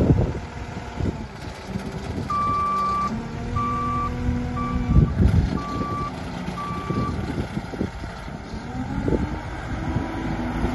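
Manitou MT 1740 SLT telehandler's diesel engine running as the machine manoeuvres. Its reversing alarm beeps five times, about once a second, starting a couple of seconds in.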